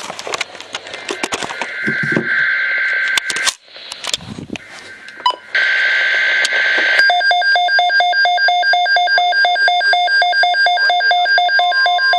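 NOAA Weather Radio receivers going off for a SAME-coded alert. First come crackly, screechy bursts of the data header through the radio speaker. From about halfway a receiver's alarm beeps in a rapid, even pulse, and a steady alert tone joins near the end.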